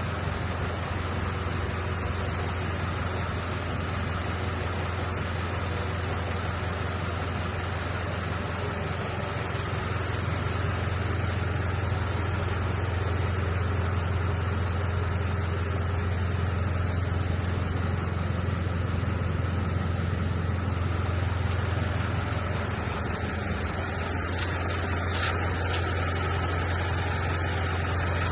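Vehicle engine idling steadily with a constant low hum.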